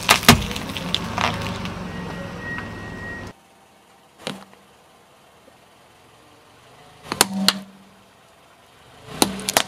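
A short intro sound effect, a hiss with clicks and a brief tone, cuts off suddenly. Then a car tyre rolls onto a green plastic pan and crushes it. The plastic gives a sharp crack about a second after the cut, then clusters of cracking and snapping around seven seconds and again near the end as it breaks.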